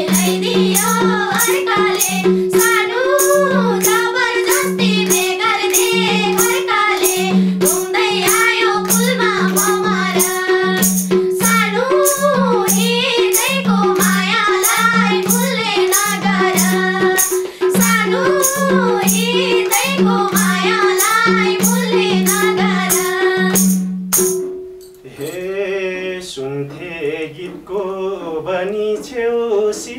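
Live Nepali dohori folk song: voices sing over a madal drum beat, a held low tone and a regular jingling percussion beat. About 24 seconds in the accompaniment stops abruptly, and a single voice carries on unaccompanied and quieter.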